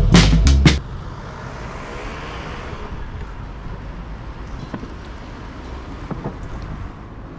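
Music with a heavy beat cuts off under a second in, giving way to city street ambience: a steady traffic rumble with a swell of tyre noise in the first few seconds and a few faint clicks.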